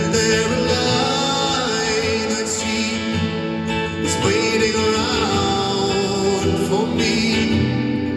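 Music: a passage of a slow song with no sung words, sustained melody lines over an accompaniment.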